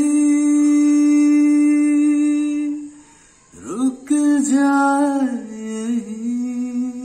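A man singing a slow Hindi melody, with no other instrument standing out: one long held note for almost three seconds, a short break with a quick rising slide, then a brief wavering phrase that settles into another held note.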